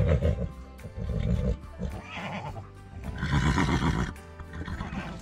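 Horses whinnying several times over background music.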